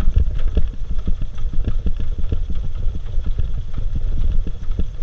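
Audi 80's carburetted engine idling on LPG, running unevenly with irregular firing pulses and barely keeping itself running: the gas vaporizer's adjustment screw is set by the instruction-booklet method, which leaves the gas mixture wrong.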